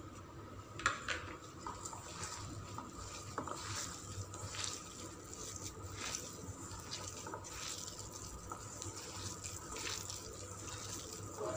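A hand squeezing and kneading wet grated chayote with bhaji-bonda flour and spices in a steel bowl: irregular soft squelches and rustles, about one or two a second. The mixture is wet from the chayote's own juice, with no water added.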